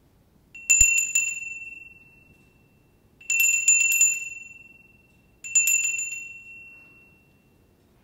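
A small, high-pitched bell rung in three bursts. Each burst has several quick strikes, then the bell rings on and fades over a second or two.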